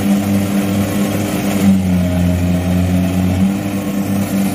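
Kubota rice combine harvester's diesel engine running steadily under load as it cuts and threshes rice: a constant, even-pitched engine drone with the machine's working noise.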